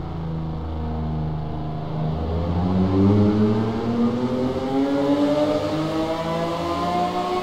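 Pagani Zonda Tricolore's 7.3-litre Mercedes-AMG V12 in a tunnel. It holds a low, steady note for about two seconds, then accelerates, its pitch climbing steadily and getting louder through the rest.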